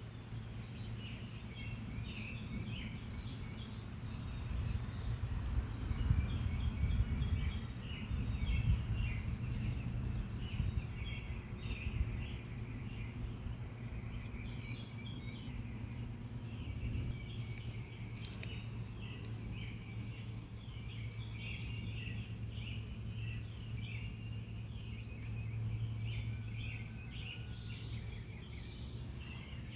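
Birds chirping continuously, many short overlapping calls, over a steady low hum.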